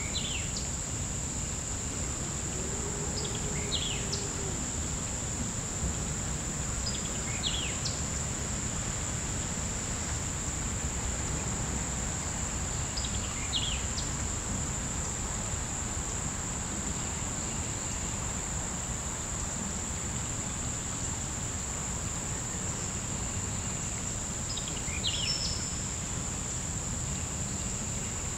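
Insects droning steadily in one high, even tone, with a bird giving short chirps about five times, several seconds apart. A low rumble of outdoor background noise runs underneath.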